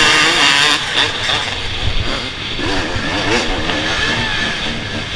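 Several off-road dirt bike engines idling and being blipped at the start line, their pitch rising and falling over and over in short revs.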